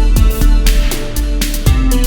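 Electronic dance track playing back from the DAW: a deep bass with kick drum hits, sustained synth notes and a hissing sweep.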